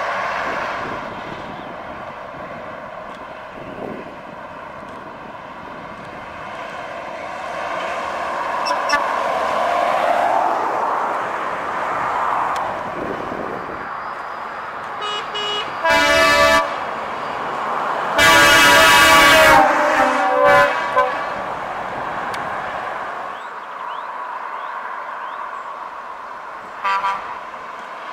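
Truck air horns blown by passing heavy lorries: a short blast about halfway through, a longer, loud multi-note blast a couple of seconds later followed by two short toots, and one more short toot near the end. Before the horns, steady engine and tyre noise from trucks on the road.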